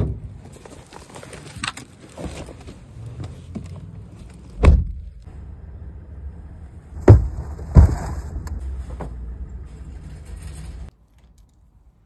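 Footsteps on parking-lot asphalt and a paper grocery bag rustling beside a car, then heavy thumps of the car being loaded and shut: one about five seconds in and two close together near the eight-second mark. A low steady rumble runs underneath.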